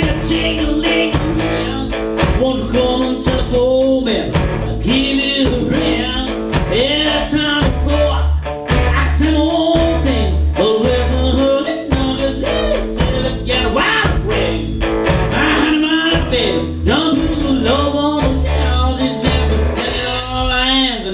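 Blues-rock band playing: a guitar line with bent notes over a deep bass line.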